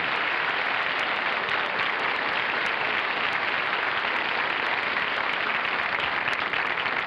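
Studio audience applauding, a steady dense clapping that keeps up evenly throughout.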